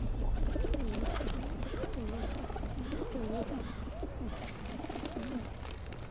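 Pigeons cooing over and over, several overlapping rising-and-falling coos, over a low steady background rumble.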